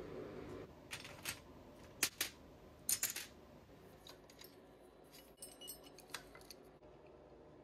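Faint, scattered metallic clinks and taps of hand tools on the engine mounting bolts, spacers and brackets as they are undone and handled, with a short run of fine ticks about five and a half seconds in.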